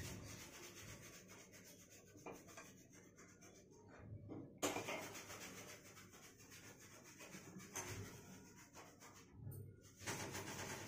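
Faint rubbing and scraping handling noise on a hand-held phone's microphone as it is moved around, with a sharper knock about four and a half seconds in.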